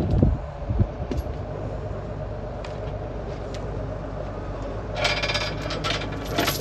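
Steady low machine hum, with a few knocks in the first second and a burst of metallic clinking and rattling about five seconds in, as metal parts and tools are handled.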